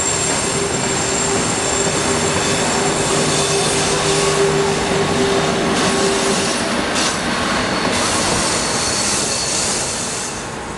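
Flåm Railway passenger train rolling along the platform, its steel wheels squealing on the rail with a steady tone that fades about six and a half seconds in, over continuous wheel and rail noise.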